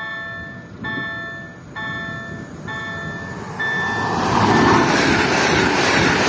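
Repeated electronic warning tones, about one a second, until a little past halfway. They are then swamped by the rising noise of a Newag Impuls 45WE electric multiple unit pulling away and running past.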